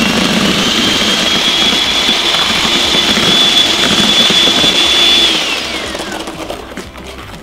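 Electric hand mixer running with its twin beaters whisking a runny egg-yolk batter in a bowl: a steady high motor whine that falls in pitch and fades about five seconds in as the mixer is switched off and spins down.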